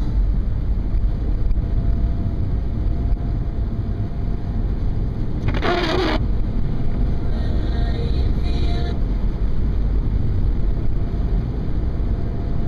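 Car road noise: a steady low rumble from the moving car, with a short loud rush of hissing noise about six seconds in.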